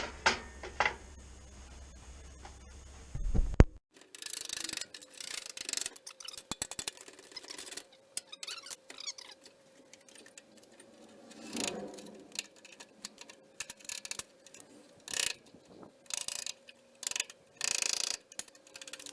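Irregular metal clicks, knocks and scrapes as the folded edge of a steel car door skin is tapped and prised apart from the door frame along its ground-off seam. A steady low hum at the start stops abruptly a few seconds in.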